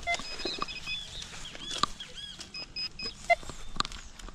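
Metal-detector pinpointer beeping in short high runs as it is worked over the dig hole, with a few sharp clicks from a knife cutting into the soil and short chirps among them.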